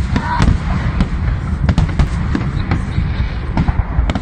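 Fireworks going off: sharp cracks at irregular intervals, a few every second, over a steady low rumble.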